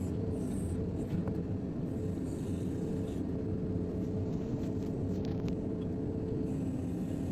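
JCB 3DX backhoe loader's diesel engine running steadily while excavating, with a few faint clicks about four to five and a half seconds in.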